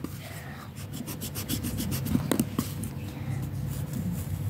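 Pencil lead scratching on notebook paper in a run of quick back-and-forth strokes.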